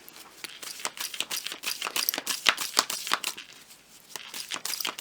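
Tarot cards being shuffled by hand: a quick, irregular run of crisp flicking and slapping clicks that thins out briefly about four seconds in.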